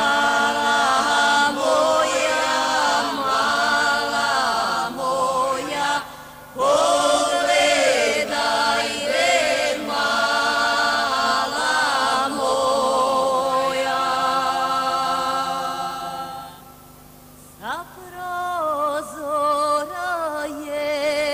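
A woman singing a slow, melismatic folk melody with long held notes that waver with vibrato. She breaks off briefly about six seconds in and again for a moment past the middle.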